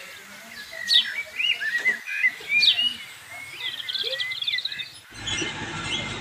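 Songbirds chirping and whistling, with sharp rising calls about every second and a quick chattering trill near four seconds in. About five seconds in the sound cuts abruptly to the steady running of a wheel loader's engine.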